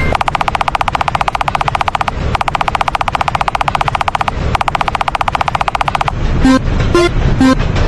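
Cartoon railroad crossing warning sounds. A very fast rattling ring comes in three runs with short breaks. About six seconds in it changes to a slower ding, about two strikes a second, on alternating pitches.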